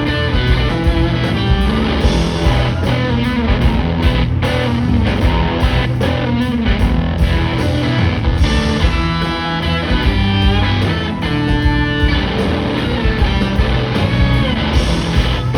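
Live rock band playing, electric guitar to the fore over bass and drums, at concert volume.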